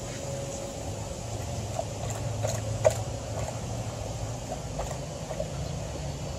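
Golden retriever lapping water from a plastic bucket: a run of short, irregular wet laps and splashes from about two seconds in, over a steady low background rumble.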